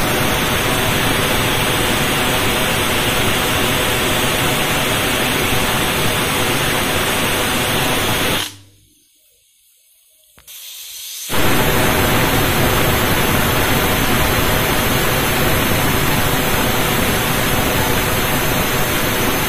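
Pressure cooker whistle: steam hissing steadily out under the weight valve of a United pressure cooker as it vents at full pressure. The hiss cuts off about eight and a half seconds in and comes back about two seconds later.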